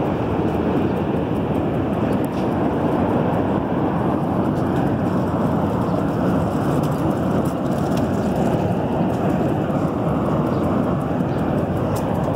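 Steady din of city traffic, with no single vehicle standing out.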